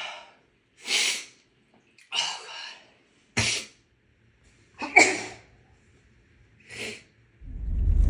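A woman sneezing over and over with a cold or allergies, with short sharp breaths between the sneezes. The loudest, most sudden sneezes come about three and a half and five seconds in. A low rumble builds near the end.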